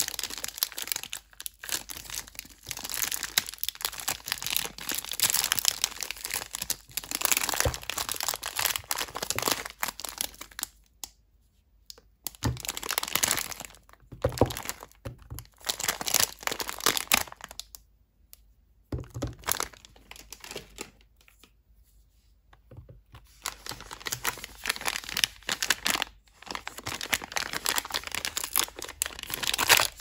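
Plastic soap wrappers crinkling and tearing as they are pulled open and peeled off bars of soap, in bursts with short pauses between them. A few soft knocks come in between the bursts.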